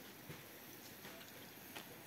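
Quiet handling of thin sac-baked flatbread sheets, a few soft taps and rustles as they are patted down and stacked, over a faint hiss.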